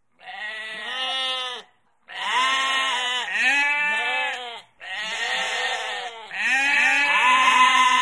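A flock of sheep bleating: several overlapping calls, each rising and falling in pitch, come in four stretches separated by short pauses.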